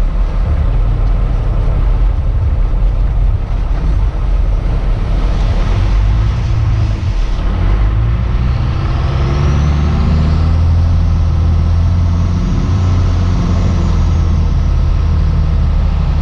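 Cummins diesel flatbed farm truck driving, its engine heard from inside the cab. About eight seconds in, a high whine rises in pitch as the truck pulls harder, then holds steady.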